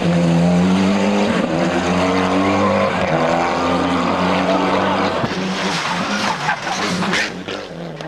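Mitsubishi Lancer Evolution rally car's turbocharged four-cylinder engine revving hard at stage speed, its pitch dipping and climbing again with gear changes. From about five seconds in, the engine note turns rough with sharp crackles, then fades away near the end.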